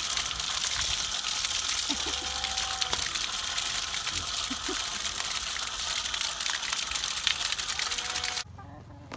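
A jet of milky liquid splashing steadily onto muddy ground, with a continuous hissing spatter; it cuts off abruptly near the end.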